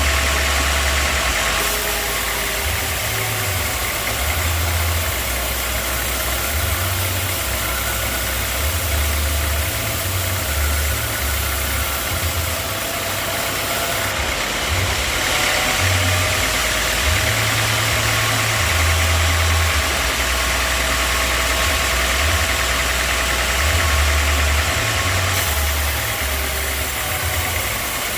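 Sawmill machinery running steadily: a constant engine-like mechanical drone with no pauses.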